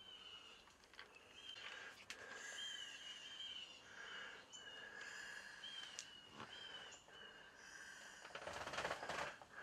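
Faint outdoor ambience: short high chirps repeating about once a second over a faint steady higher hum, with a brief rustle near the end.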